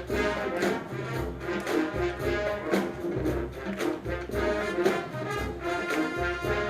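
Drum and bugle corps playing: a brass line of horns sounding held chords over a steady beat of marching percussion.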